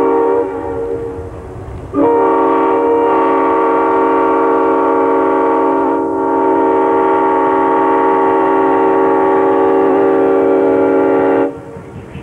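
GE 70-ton diesel switcher's air horn sounding for a road grade crossing. One blast ends about half a second in; a long blast starts about two seconds in with a brief dip near the middle and cuts off shortly before the end. The locomotive's engine and wheel noise then come up as it reaches the crossing.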